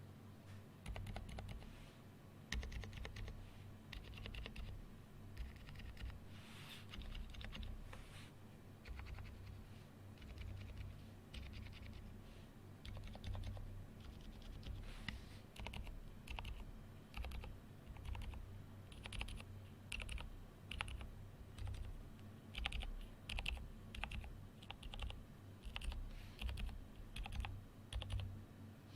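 Typing on a silent 65% mechanical keyboard: lubed Aliaz Silent 60g switches under GMK Botanical keycaps in a frosted polycarbonate GrayStudio Think6.5 V2 case. The keystrokes come as soft, irregular runs of clicks.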